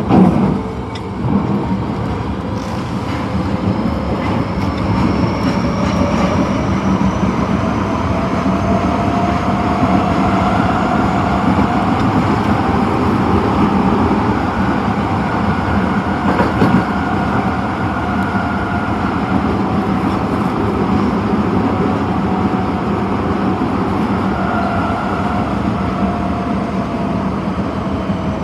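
Osaka Metro 22 series subway train running, a steady rumble with a motor whine that slowly rises in pitch over the first half and falls again near the end.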